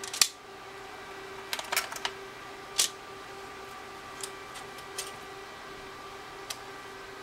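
Sharp plastic clicks and snaps from handling and opening a TI-83 Plus calculator's plastic case. The loudest snap comes right at the start, a quick cluster about a second and a half in, another near three seconds, and a few fainter ticks later. A steady faint hum runs underneath.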